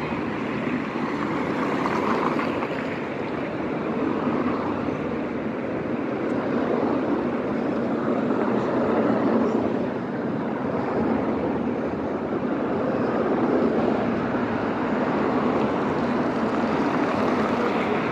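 City street traffic: cars driving past, a steady rush of tyres and engines that swells and eases every few seconds.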